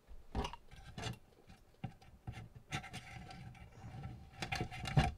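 A screwdriver and 3D-printed plastic excavator bucket parts being handled on a wooden workbench: a string of irregular knocks and clicks, the loudest just before the end.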